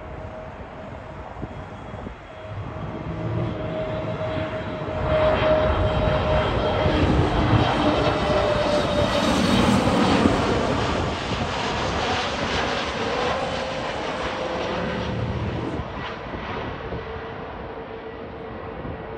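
Airbus A320neo jet airliner on final approach passing low overhead, its engines whining and rumbling at approach power. The sound builds, is loudest in the middle as it passes, then fades, with a steady whine that drops slightly in pitch as it goes by.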